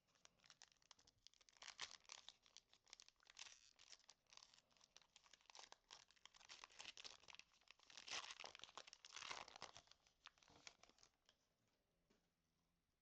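Pokémon card booster pack's foil wrapper being torn open and crinkled: a dense run of crackling and ripping that stops about eleven seconds in, loudest around eight to nine seconds in.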